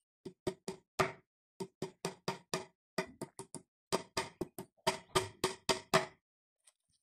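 Hammer tapping a nail into a wooden board laid over a hollow kithul palm log: about twenty sharp knocks in quick runs of three to five, roughly four a second.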